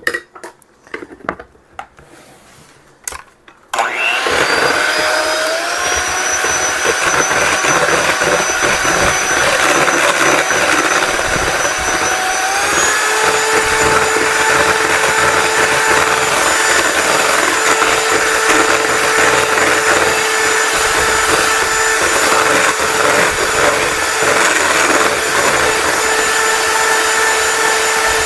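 Electric hand mixer whipping cream in a stainless steel bowl, switched on about four seconds in after a few light clicks. Its motor whine climbs as it comes up to speed, steps up once more about halfway through, then runs steadily, beating the sweetened cream toward stiff peaks.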